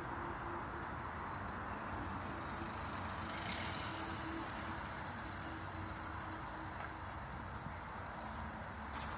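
Steady background noise of distant road traffic, with a faint engine hum for much of the time.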